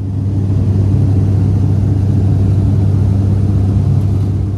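Cabin noise of an ATR 72-600 turboprop in cruise: a loud, steady drone from its twin propellers and engines, with a strong low hum and a few fainter overtones over a haze of airflow noise. It swells up over the first second and fades down near the end.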